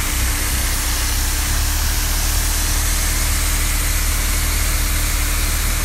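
Heavy engine running steadily at a constant speed, a low drone with an even hiss over it.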